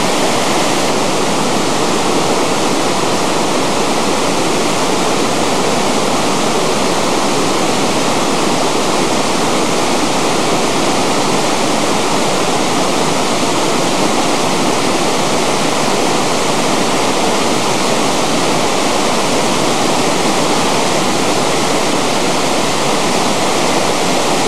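Waterfall pouring down a rock face: a steady, loud rush of falling water.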